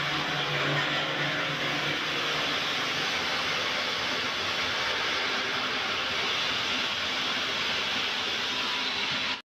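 Large water-cooled circular saw blade of a stone block-cutting machine grinding through a silver grey granite block: a steady hiss of blade on stone and spraying water, with a low motor hum that fades after about two seconds.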